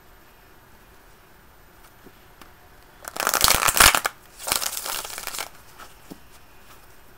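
Tarot cards being shuffled by hand: two bursts of quick, rustling card slaps, each about a second long, starting a little after three seconds in.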